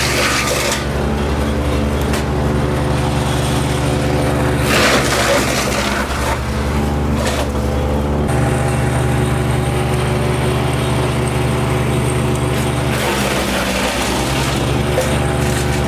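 MechMaxx P4206 wood chipper's engine running steadily under load. Three times, at the start, about five seconds in and near the end, a louder rough chipping surge comes in and the engine note pulls down briefly, as branches are fed through.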